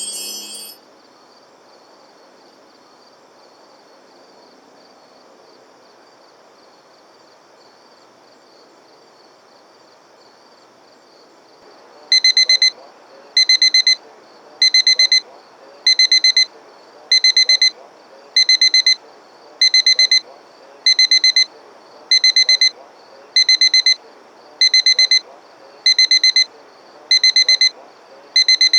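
Low steady hiss for about twelve seconds, then a digital alarm clock starts beeping: short groups of about four quick, high-pitched beeps, repeating a little more than once a second.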